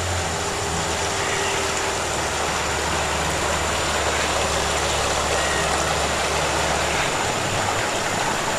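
Outboard motor of a small river boat running at speed, with water rushing past the hull. The low engine hum drops out about seven seconds in.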